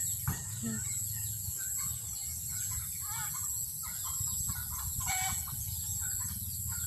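Farmyard fowl calling repeatedly in short, pitched calls, among them a noisy turkey.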